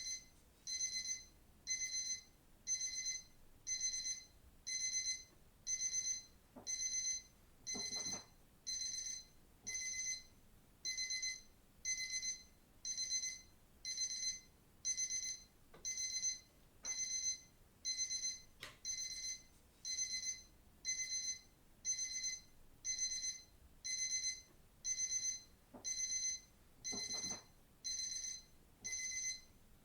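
Digital watch alarm beeping: short bursts of high-pitched electronic beeps, repeating about once a second.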